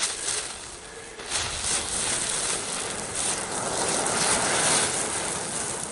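Several small F1 fire-ring ground fireworks burning at once with a steady hissing and crackling of sparks. They swell louder about a second and a half in, spraying sparks in place without spinning.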